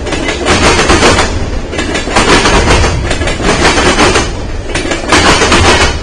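Freight train's covered hopper cars rolling past at close range, steel wheels running on the rails. The noise swells loud about four times as car after car goes by.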